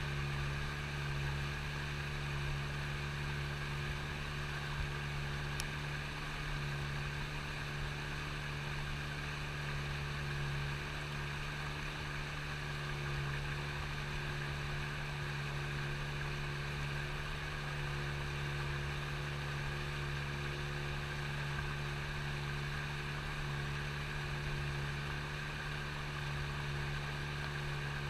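A small boat motor running steadily with an even hum at one unchanging pitch.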